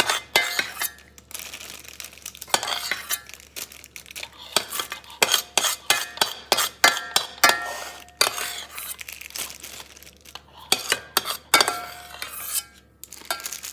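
Metal spoon scraping and clinking against the inside of a stainless steel pot in irregular strokes, scooping out thick pastry cream, with short metallic rings on some strokes.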